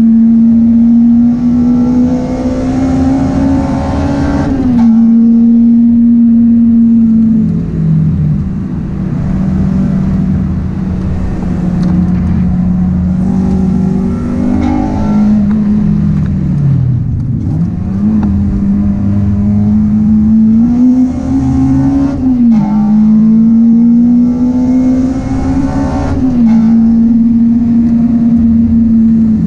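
Honda Integra DC5 Type R's four-cylinder VTEC engine, heard from inside the cabin, driven hard on track. The revs climb steadily in each gear and drop sharply at each upshift, and fall away for a few seconds under braking around the middle before picking up again.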